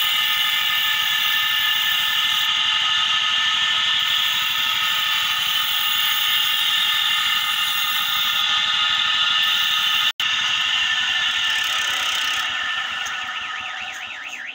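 Knife blade being sharpened on a grinding wheel that is belt-driven from a motorcycle's rear wheel: a steady, high-pitched grinding squeal, easing off in the last couple of seconds.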